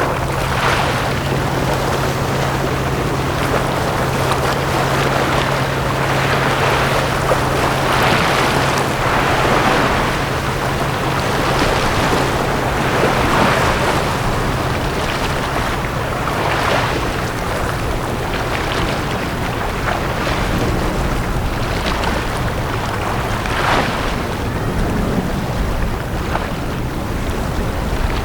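Small sea waves washing onto a beach, a swell of surf every two or three seconds. A steady low hum runs underneath for about the first half, then fades out.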